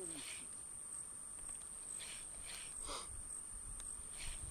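A steady high-pitched insect trill, like a cricket, with low wind rumble and a few faint soft rustles.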